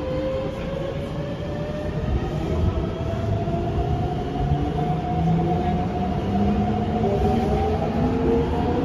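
Mitsubishi GTO VVVF inverter of a Keikyu 600 series train whining as the train accelerates away from a station, heard from inside the car. Several tones rise steadily in pitch over the low rumble of motors and wheels.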